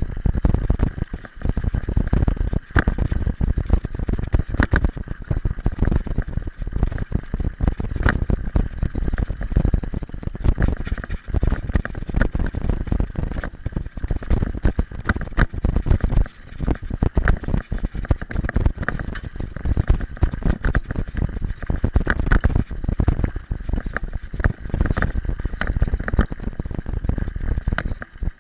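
Mountain bike ride over a loose gravel road: a continuous rough rumble from the tyres on the stones and wind on the microphone, with frequent rattles and knocks as the bike jolts over the bumps.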